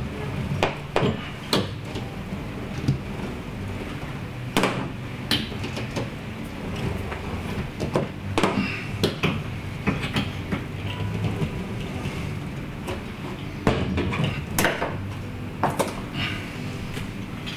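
Scattered knocks, taps and rustles as Kilmat sound-deadening mat is handled and laid onto a school bus's metal engine compartment cover, with a few longer, louder handling sounds among them.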